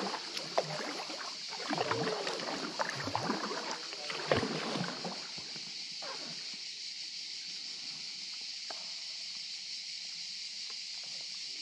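Kayak paddle strokes splashing and dripping in calm water, with small gurgles, for the first five seconds or so; then the strokes stop and the inflatable kayak glides, leaving only a steady high hiss.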